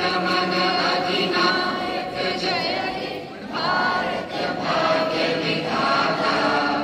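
A group of voices singing together in chorus, with short breaks between phrases.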